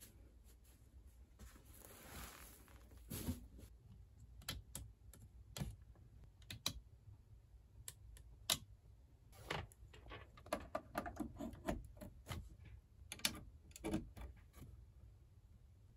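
Irregular light clicks and taps of hands handling capsule-room fittings, with a brief soft rustle of bedding near the start and a cluster of clicks as a cable plug goes into a wall socket near the end.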